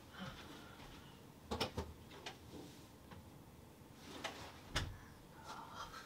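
Quiet room tone broken by a few soft knocks and thumps, three of them clear and spread through, like someone moving about and a door or drawer being handled.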